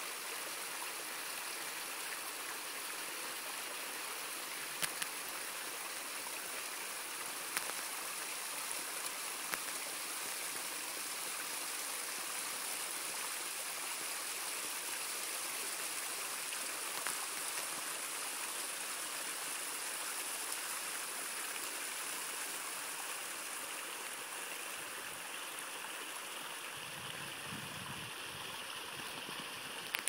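Small waterfall splashing and trickling over layered rock ledges into a shallow pool: a steady, even rush of falling water.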